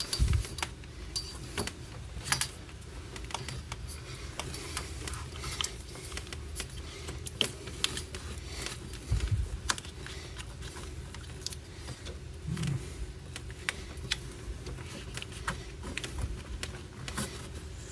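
Handling noise from cables and plastic cable-management strips being fitted: scattered small clicks and rattles, with a couple of low thumps, one at the start and one about nine seconds in.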